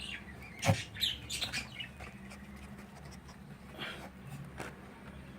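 A sharp knock under a second in, then a quick run of short, high cockatiel calls, with two fainter calls later.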